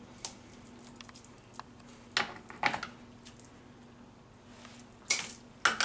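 Several short, sharp snips and squishes as bamboo skewers are pushed through the skin of a whole stuffed fish and trimmed with kitchen shears.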